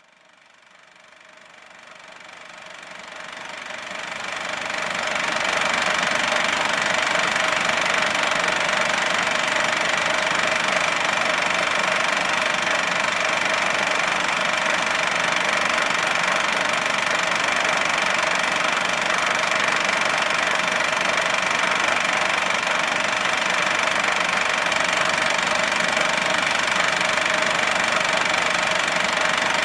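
A steady mechanical running noise, a machine's rattle and whir, fading in over the first five seconds and then holding steady.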